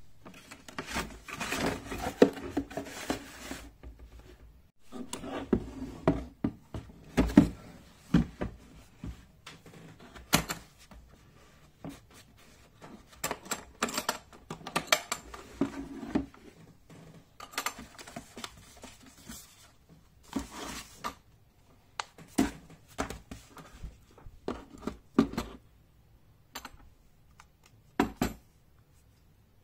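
Unboxing handling noises: a cardboard box and a hard plastic tool carry case rustling, scraping and knocking as they are handled and the case is opened, with irregular sharp clicks and knocks.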